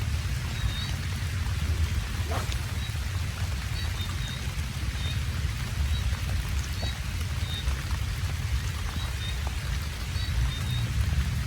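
Steady rain falling, with a low rumble underneath and short high chirps recurring every second or so.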